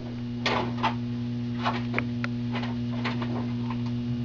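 A steady low electrical hum with scattered light clicks and taps over it.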